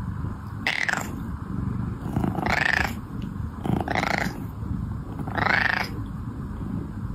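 Domestic cat purring steadily, with four short meows that rise and fall in pitch, spaced about a second and a half apart.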